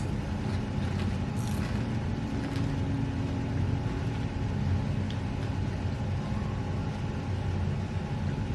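Steady low rumble with a faint steady hum underneath, and a brief crunch about a second and a half in, fitting a tortilla chip being bitten.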